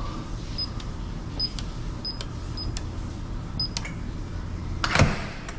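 Electronic door keypad beeping once for each key pressed: five short high beeps as a five-digit code is entered, then a loud clack from the door about five seconds in as it unlocks.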